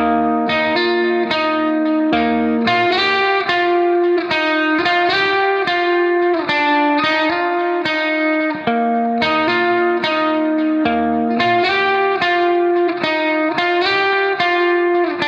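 Background music: a plucked guitar piece of quick, repeated picked notes.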